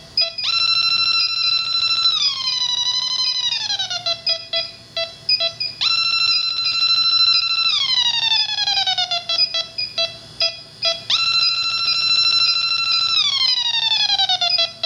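Yellow Jacket AccuProbe refrigerant leak detector alarming as it detects R-410A leaking from the coil. A high steady tone holds for about a second and a half, then slides down in pitch. This repeats three times, with rapid ticking beeps in between.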